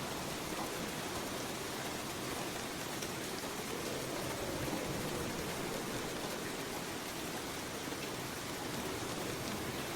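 Steady rainfall, an even patter of raindrops on surfaces with no thunder.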